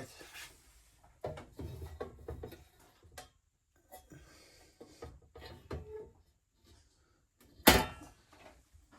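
Handling noises: scattered light clicks, knocks and rubbing, with one sharp, loud knock about three-quarters of the way through.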